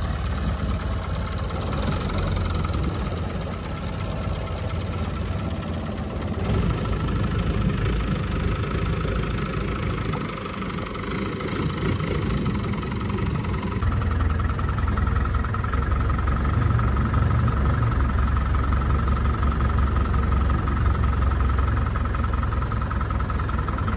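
Long-tail boat's inboard engine running steadily under way, a fast low throb with a steady whine over it, getting louder about halfway through.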